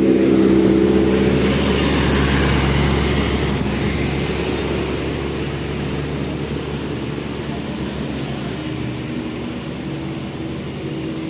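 An intercity bus's telolet musical air horn sounding a held chord that stops about a second and a half in, then the bus's engine and tyres passing and slowly fading away.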